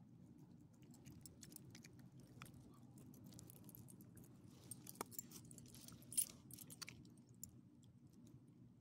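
Small dogs chewing food out of a person's hand, with light jingling clinks of the metal ID tags on their collars, the sharpest about six seconds in. A faint low hum runs underneath.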